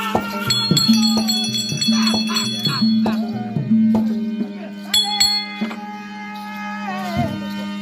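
Traditional therukoothu accompaniment: a melody over a steady drone with drum strokes, and hand cymbals struck that ring on, loudest about half a second and about five seconds in.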